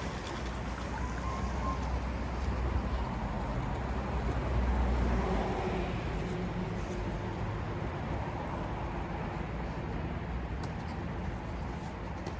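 Steady low rumble and hiss of wind on the microphone, with a few faint ticks near the end.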